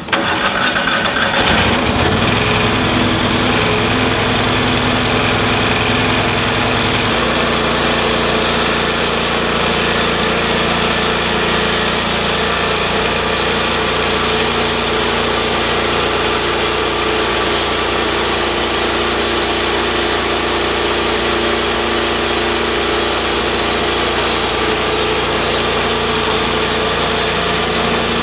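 TimberKing 1220 bandsaw mill's engine running steadily just after start-up. About seven seconds in the sound changes and a high hiss joins it, as the band blade engages and the head moves along a mesquite log for a cut.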